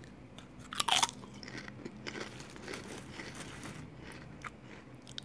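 A man biting into a barbecue potato chip with one loud crunch about a second in, then chewing it with faint, crackly crunching.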